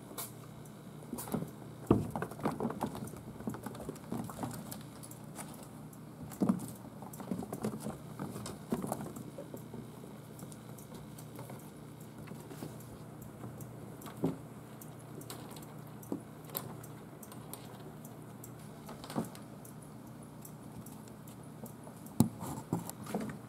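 Six-week-old kittens scampering and wrestling on a hardwood floor: scattered light paw patters, scuffs and small thumps against the floor and the cat scratcher beds. Louder knocks come about two seconds in, around six seconds in and in a cluster near the end.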